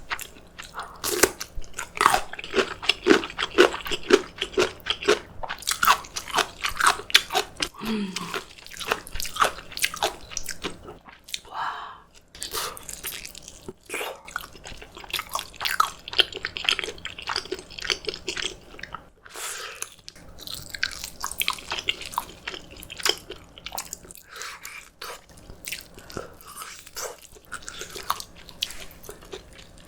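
Close-miked eating: continuous chewing with many crisp, crunchy bites and mouth clicks, from a meal of spicy braised beef feet, rice and radish kimchi.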